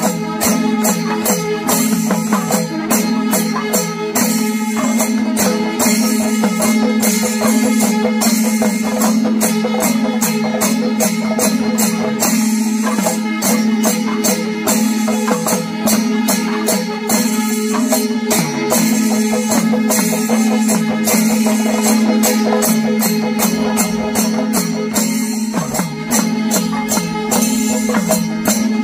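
Kerala temple-festival percussion ensemble: fast, continuous cymbal clashes and drumming over a steady droning tone.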